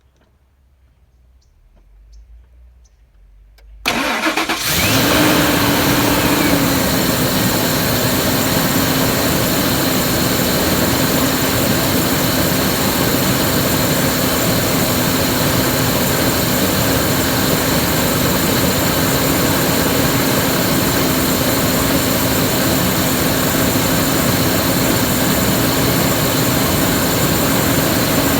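2001 Ford F-150's 5.4 L two-valve Triton V8 starting about four seconds in, then settling into a steady idle. The owner calls it a rough idle that sounds stifled, as if the engine is not getting enough air.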